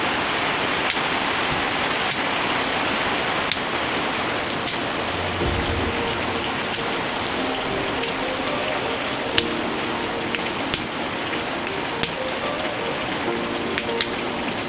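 Heavy rain falling steadily, with scattered sharp clicks of individual drops.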